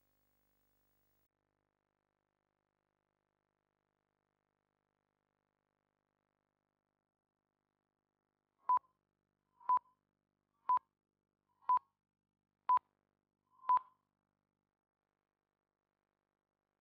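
Electronic countdown cue beeps: after about eight seconds of silence, six short beeps at one steady pitch, one a second, with the last slightly longer.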